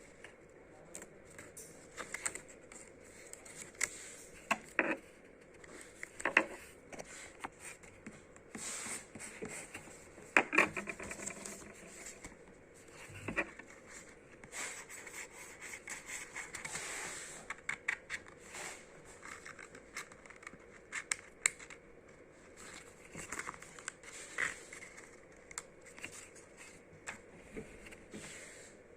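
Sticker sheets and their packaging being handled close up: scattered crinkles, scratches and small taps, with a longer stretch of rustling about halfway through.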